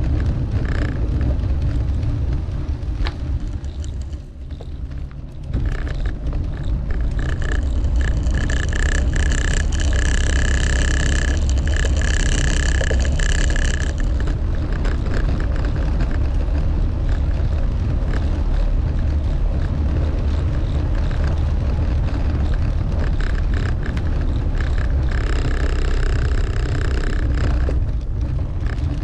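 Steady rumble of wind on the microphone and road noise during a bicycle ride. A high-pitched whine with overtones is heard twice, for several seconds each, in the middle and near the end.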